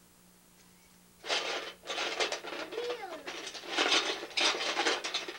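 Rustling and rattling as a toddler rummages through a cardboard box of plastic building bricks, in several bouts starting about a second in, with a brief squeaky glide partway through.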